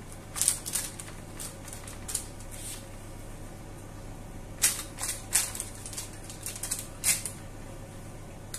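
A latex-gloved hand pushing potato chunks, sausage and red pepper around a metal baking tray lined with baking paper: irregular crinkles of the paper and soft clicks as pieces are shifted, most of them bunched in a few spells, over a faint steady hum.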